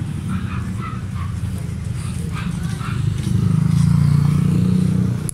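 Two-stroke motorcycle engine of an old Yamaha DT running, blipped up with the throttle from about three seconds in for a second or two, then easing back, as the newly fitted quick-action throttle is tested.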